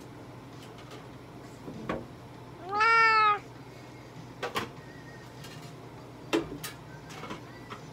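A domestic cat meows once, a single meow of under a second that rises and then falls a little in pitch. A few faint clicks and knocks sound around it.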